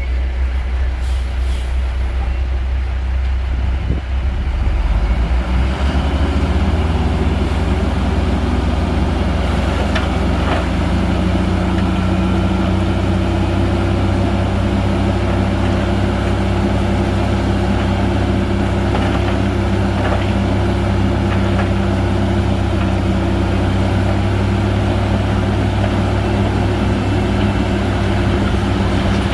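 Shantui bulldozer's diesel engine running hard, its note climbing about five seconds in and then holding steady under load.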